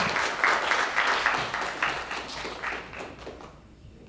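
Audience applauding, the clapping thinning out and dying away about three seconds in.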